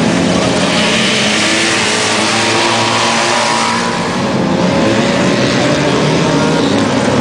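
Several Trabant race cars' two-stroke engines revving hard together, their pitches rising and falling as the cars accelerate through the dirt-track corners, over a steady haze of noise.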